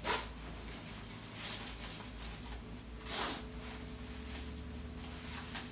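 Nylon seat strap webbing being pulled and worked through a hole in the mounting plate: a brief scrape just after the start and a longer rustling swish about three seconds in, over a faint steady hum.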